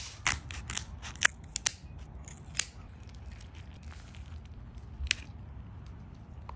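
Raw lobster tail shells being cracked open by hand: a handful of sharp crunching snaps, most of them close together in the first two and a half seconds, with one more about five seconds in.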